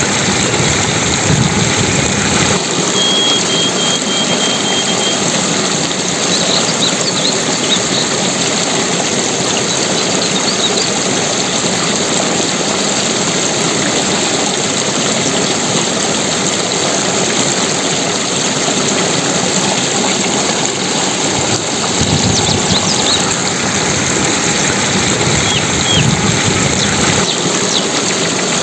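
Continuous water noise, a steady even rush, with a few faint short high chirps now and then.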